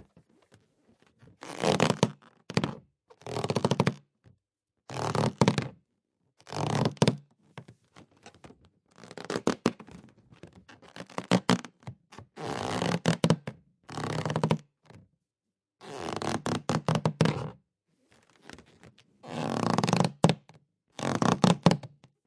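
Rubber balloon squeaking as it is rubbed and twisted, in about a dozen separate squeaks of up to a second and a half each, with short pauses between.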